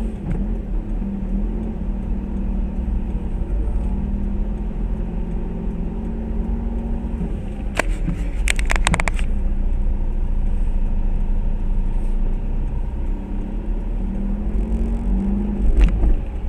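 Steady low rumble and road noise inside a car driving on a wet road. A quick cluster of sharp knocks about eight seconds in, and one more near the end.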